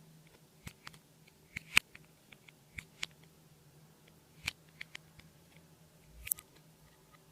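Clear slime being worked by hand, giving scattered sharp clicks and pops; the loudest comes a little under two seconds in. A faint steady low hum sits underneath.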